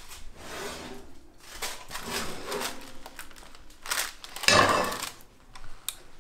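Parchment paper crinkling and rustling, with light knocks of cookware, as a baked loaf is lifted out of a hot oven in its parchment sling. A louder rustle comes about four and a half seconds in.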